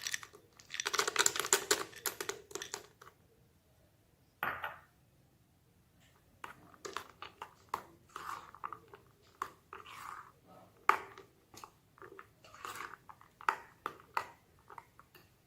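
Cashews, almonds and peanuts tipped into a bowl, landing as a short dense rattle, followed by a single knock. Then a spoon works through the thick, creamy mango mixture with soft squelches and light irregular clicks against the bowl.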